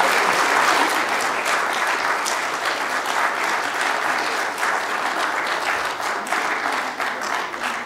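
Congregation applauding, the clapping slowly dying away toward the end.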